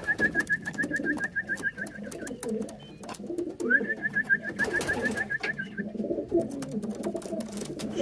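Racing pigeons cooing around the loft, a low rolling murmur that goes on throughout. Over it come two fast, even trills of chirps held at one pitch, the first over about the opening two seconds and the second from about four to six seconds in, with scattered sharp taps and clicks.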